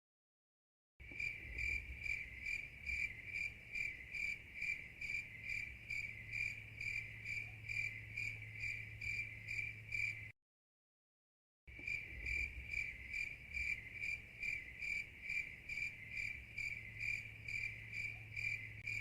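A cricket chirping steadily: evenly repeated high-pitched chirps, about three a second, over a faint low hum. The sound is cut to dead silence for about a second at the start and again for just over a second around ten seconds in.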